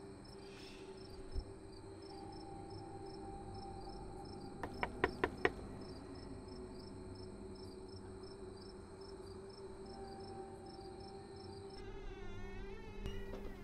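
Four quick knocks on a front door about five seconds in, over a steady, regular chirping of crickets that cuts off near the end.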